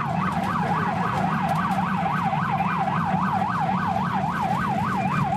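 Ambulance siren in a fast yelp, its pitch sweeping up and down about four times a second, over a steady low engine rumble.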